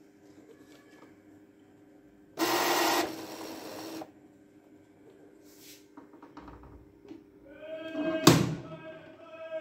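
Epson L380 ink-tank printer being closed up: its scanner unit is lowered and shuts with a loud clack about eight seconds in, around a steady whine from the printer's mechanism. A short loud rush of noise comes a couple of seconds in.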